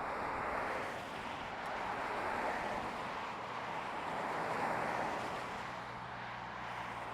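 Road traffic going by: a tyre-and-engine hiss that swells and fades about three times as vehicles pass, with a low steady engine hum coming in about three seconds in.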